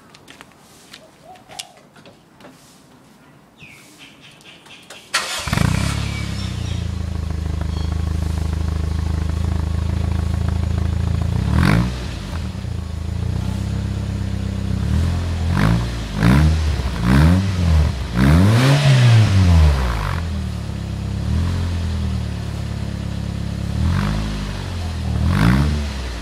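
1992 Toyota Corona's engine, fitted with an aftermarket Hyper exhaust, started about five seconds in after a few faint clicks, then idling steadily. From about halfway it is revved repeatedly, the exhaust note rising and falling with each blip, loudest in a run of revs in the second half and again near the end.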